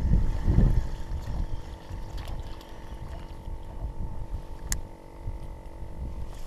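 Water sloshing and splashing around a canoe as it is paddled, over a gusty low rumble of wind on the microphone that is strongest in the first second; a single sharp click about halfway through.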